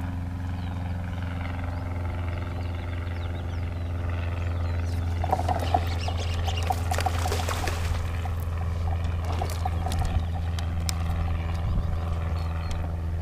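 A steady low motor hum under the kayak. From about five seconds in, rapid clicking and a few seconds of splashing as a hooked bass is set and fought at the surface.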